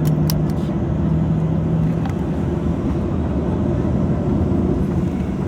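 Cabin noise inside a Boeing 737-800 on the ground before takeoff: a steady low rumble from the running engines and airframe. A low hum fades out about two seconds in, and there are a few light clicks near the start.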